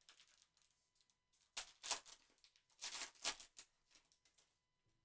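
Plastic wrapper of a trading-card pack rustling and crinkling as it is handled, in a few short bursts.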